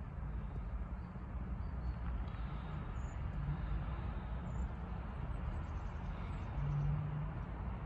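Outdoor ambience: a steady low rumble with a few faint, short high bird chirps.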